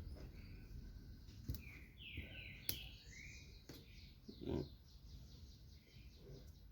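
Faint bird chirps and a quick trill of repeated short notes in the background, with a few small sharp clicks and one duller knock from handling the blender's parts and tools.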